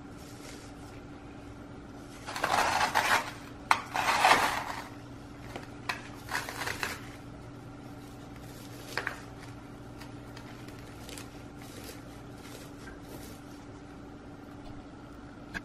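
Handling noises from a potted orchid being moved and settled: two short rustling scrapes a couple of seconds in, then a few light clicks and clinks. A steady low hum runs underneath.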